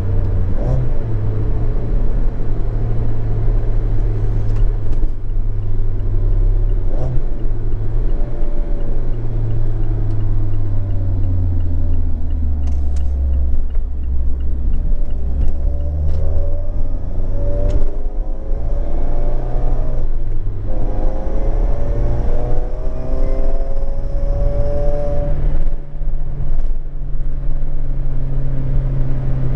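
A Mazda MX-5 Miata's 2.0 L SkyActiv four-cylinder, breathing through a Skunk2 Alpha 4-1 header and Remark cat-back exhaust, heard from inside the cabin while driving. The note sinks for a few seconds, then climbs in repeated rising sweeps, each broken off by a short gap as the manual gearbox is shifted.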